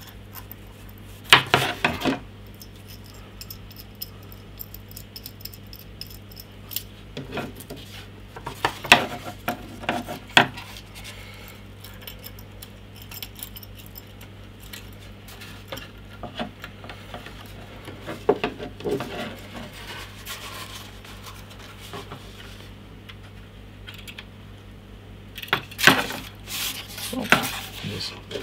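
A small chromed-steel C-clamp being handled and screwed onto pieces of cardboard and wood: scattered metal clinks and rattles in four short bursts, with wood knocking on the table.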